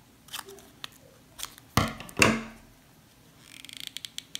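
Paper being handled: scattered small clicks, then two loud rustling knocks about two seconds in. Near the end comes a quick run of small ratcheting clicks, like a hot glue gun's trigger being squeezed to feed glue.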